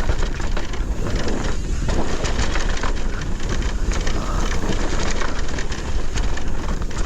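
Wind rushing over the microphone and tyres rolling over dry dirt as an e-mountain bike descends singletrack, with frequent clicks and knocks from the bike rattling over bumps.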